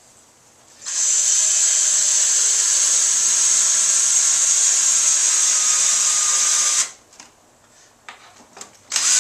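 Power drill driving a 1.5-inch screw into a wooden backing strip, a steady run of about six seconds. A few short knocks follow, and the drill starts again near the end.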